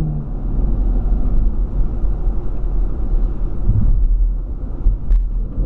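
2016 Chevrolet Camaro SS with its 6.2-litre LT1 V8, heard from inside the cabin while driving on a snowy road: a steady low mix of engine and tyre noise.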